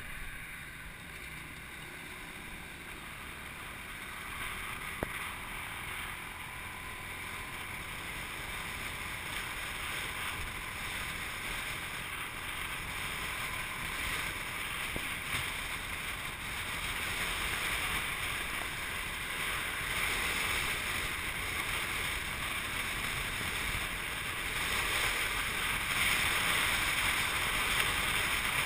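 Motorcycle on the move: wind rushing over the microphone with road and engine noise, building steadily louder as the bike gathers speed. One short click about five seconds in.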